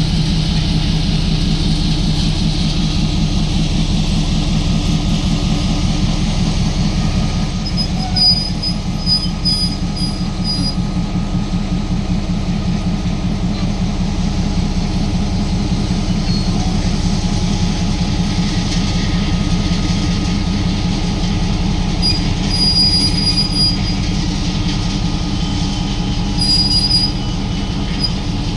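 A diesel-electric locomotive hauling a ballast work train, its engine running with a steady low throb over rolling rumble. Short high-pitched wheel squeals come about a third of the way in and twice near the end.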